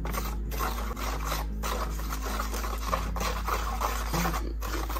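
Tile grout and water being stirred slowly in a mixing container, a continuous scraping and rubbing in uneven strokes as the mix thickens.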